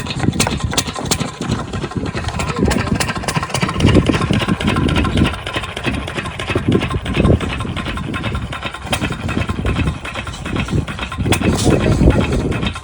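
Diesel water pump set engine running rough, its low chugging swelling and fading unevenly, as on a hard-starting engine.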